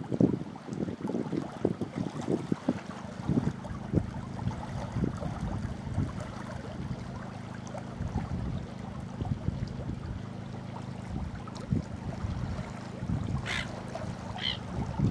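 Small waves lapping and splashing irregularly over a rock at the water's edge, with wind and a steady low hum underneath. A few short bird calls come near the end.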